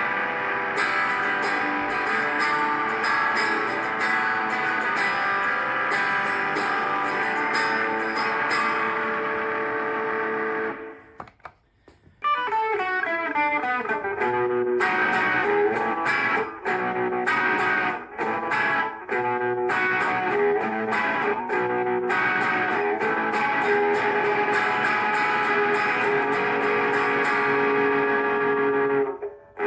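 Electric guitar played through Zoom G1X Four multi-effects preset patches. The playing breaks off briefly about eleven seconds in as the patch changes, then resumes on a new effect sound that opens with notes gliding down in pitch.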